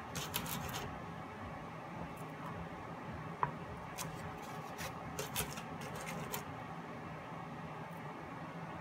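Faint, scattered soft clicks and taps of a small tool being dipped in silicone and pressed into wet acrylic paint on a canvas, over a steady low hum. A brief high-pitched blip comes about three and a half seconds in.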